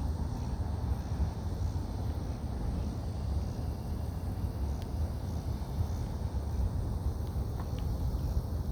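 Steady low rumble with a faint hiss: outdoor background noise.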